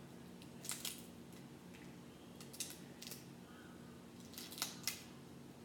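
Crab shell cracking and snapping as it is pulled apart by hand, a few sharp cracks spread out, then a quick run of three a little over four seconds in.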